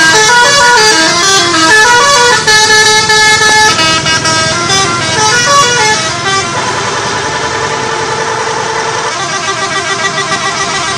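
Bus 'telolet' horn, a set of tuned multi-tone air horns, playing a quick tune of stepping notes. From about six seconds in it holds a steady chord, and the notes change again near the end.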